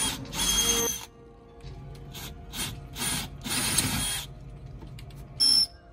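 Cordless drill running in short stop-start bursts with a high, rattling whine as the bit grinds into a metal backing plate under the deck. The owner calls it a weird noise and takes the plate for brass, which the bit will not cut.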